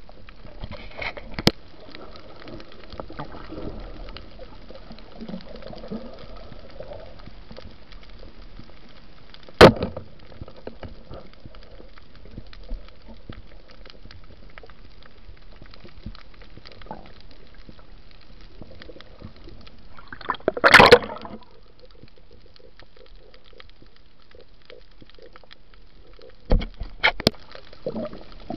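Underwater sound picked up by a diver's camera: a steady watery hiss with a faint, constant crackle of small ticks. A single sharp, loud knock comes about ten seconds in, a louder burst of about half a second just past twenty seconds, and a few more knocks near the end.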